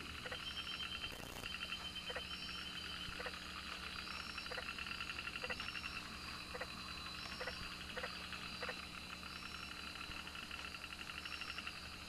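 Night chorus of frogs and insects: a steady, rapidly pulsing trill, with short high chirps and click-like calls each repeating roughly once a second.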